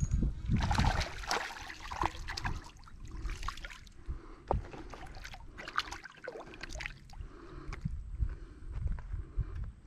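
Water splashing and sloshing as a hooked bass is drawn in and handled at the surface, louder in the first second, then settling into small splashes and many light crackling clicks.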